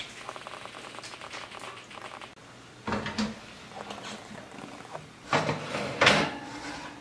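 Oven door and metal oven rack clattering as a baking tin is handled in the oven: a couple of knocks about three seconds in, then louder scraping clatter near the end.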